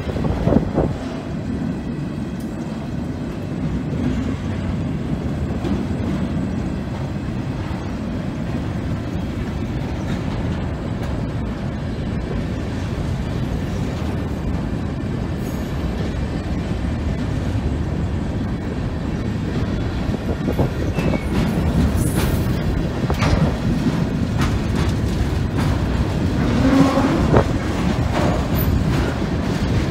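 Hopper cars of a long freight train rolling past at a grade crossing: a steady rumble of steel wheels on the rails, with a few sharp clanks and knocks from the cars now and then.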